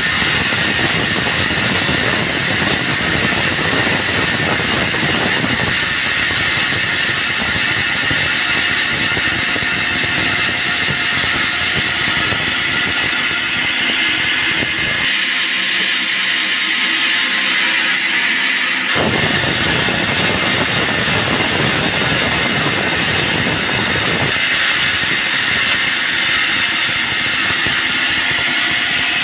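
Band sawmill running, its blade cutting through a log with a loud, steady noise. For a few seconds past the middle the low rumble drops away, then comes back.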